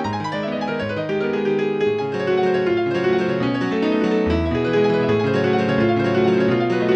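ZTE R225 mobile phone playing one of its polyphonic ringtones: a piano-like keyboard melody of quick notes over a line of lower bass notes.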